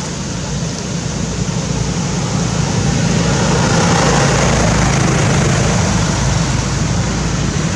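Steady road-traffic noise with a motor vehicle's low hum, growing louder over the first few seconds and then holding.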